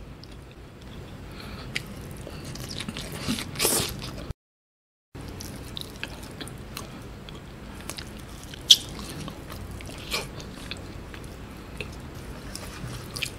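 Close-up mouth sounds of a man eating rice and fish in coconut-milk gravy by hand: chewing with scattered small wet clicks and smacks. The sound drops out completely for under a second about four seconds in.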